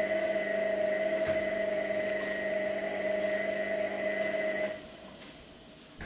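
Whirlpool front-loading washing machine in its final spin: a steady, high motor whine with a hum under it, which cuts out fairly suddenly about three-quarters of the way through as the spin ends and the drum stops.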